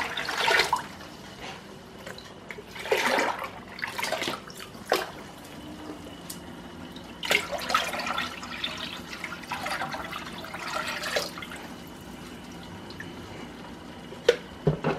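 Water poured from a jug and splashing into water, in about five separate pours: cold water being tipped into the cooling bath around the copper condenser coil of a home-made pressure-cooker still.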